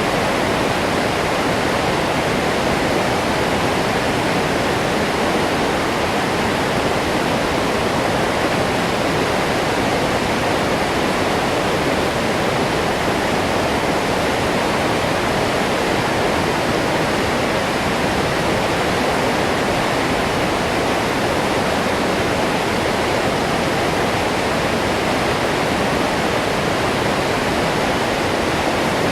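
Waterfall pouring: a steady, loud rush of falling water with no change.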